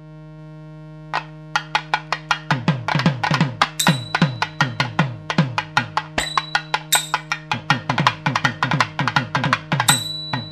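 Music: a steady drone under rapid drum strokes, about four or five a second, entering about a second in. Many of the deep strokes bend down in pitch, and there are a few high ringing strikes.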